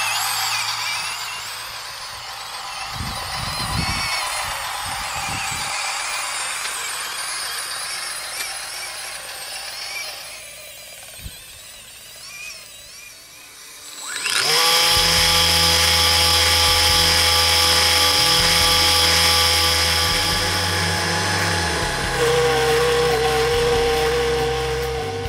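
Small electric motors of a toy RC tractor with a homemade snow blower whining, the pitch wavering up and down, for the first third. About two-thirds of the way in, loud background music with held tones and a changing bass line cuts in.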